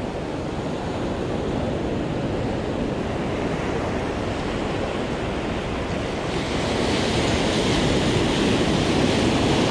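Ocean surf washing in at the shoreline, a steady rush of water that swells louder about six and a half seconds in as a wave breaks close in.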